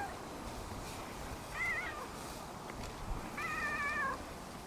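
Cat meowing while being petted: a short meow about a second and a half in, then a longer, steadier meow about three and a half seconds in.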